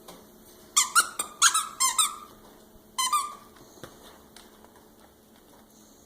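A dog's squeaky toy squeaking as the dog chews it: a quick run of squeaks about a second in, then another short squeak about three seconds in.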